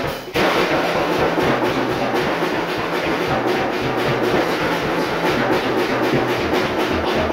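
Rebel acoustic drum kit played freestyle: after a brief break at the very start, a dense, unbroken run of drum strokes with the cymbals ringing over it.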